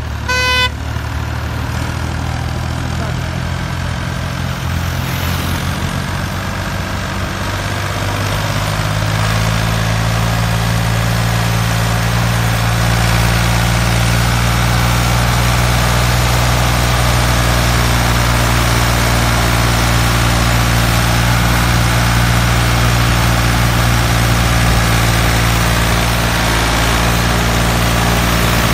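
A motor engine running steadily at idle, an even low hum that gets a little louder about nine seconds in. A short beep sounds near the start.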